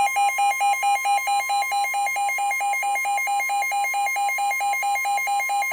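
NOAA Weather Radio's steady warning alarm tone, with a weather radio receiver's rapid pulsing alert beep sounding over it, signalling an incoming severe thunderstorm warning.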